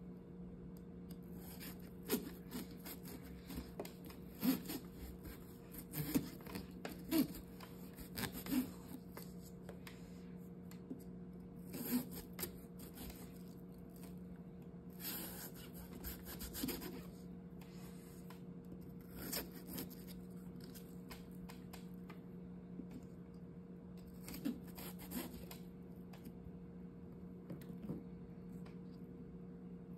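A small knife cutting and sawing through the rind of a raw pumpkin around the stem, making irregular short scraping, crunching strokes in bursts. A steady low hum runs underneath.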